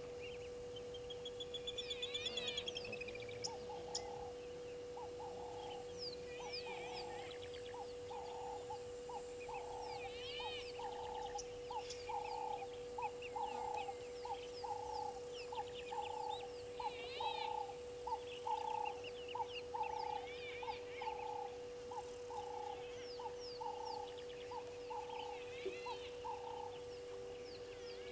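Wild animal calls at a waterhole. From about three seconds in until near the end, a short lower call repeats steadily, about three every two seconds, while higher bird chirps and trills come and go throughout. A faint steady hum runs underneath.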